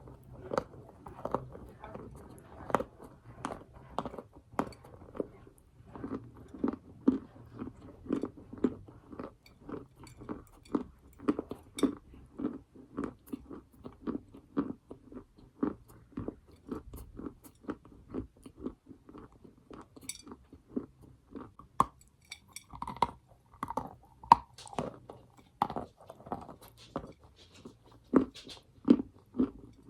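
A person biting and chewing a lump of edible chalk or clay close to the microphone: a steady run of crunchy chews, about two a second, with sharper cracks of biting now and then.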